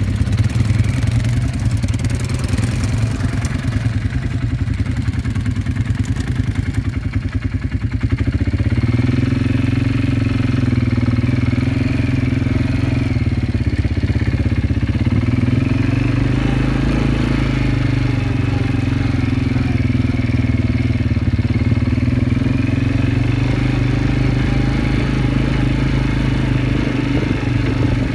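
Kymco MXU 250 quad bike engine running while riding over sand: a pulsing low engine note at first, then from about eight seconds in louder and steadier, its pitch rising and falling gently with the throttle.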